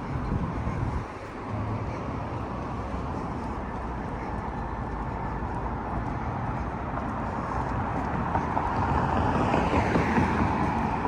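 Road traffic noise: a steady rumble of vehicles that dips briefly about a second in and grows louder near the end as a vehicle goes by.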